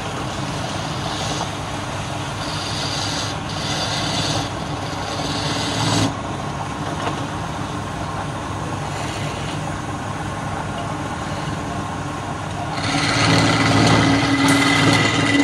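Wood lathe running with a hand-held chisel scraping into the spinning wood: a steady motor hum under the rasp of the cut. Near the end the cut gets louder and heavier as long shavings peel off the tool.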